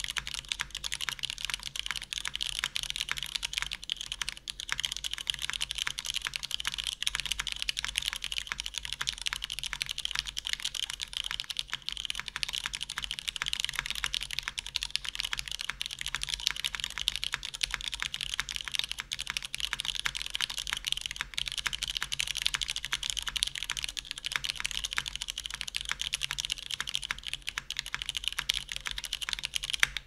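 Fast, continuous typing on a Matrix 8xv2.0 mechanical keyboard with an aluminium plate, years-old broken-in stock unlubricated Cherry MX Red linear switches and GMK Handarbeit doubleshot ABS keycaps: a dense, unbroken run of keystroke clacks.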